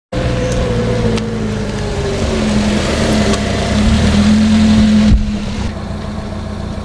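Small kei truck's engine running as it drives up, growing louder up to about five seconds in; then, after an abrupt change, a steadier, quieter engine hum.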